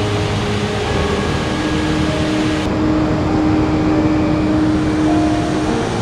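Steady rush of a waterfall cascading over rock ledges, with soft background music of long held notes over it. The water sound turns duller, losing its hiss, about two and a half seconds in.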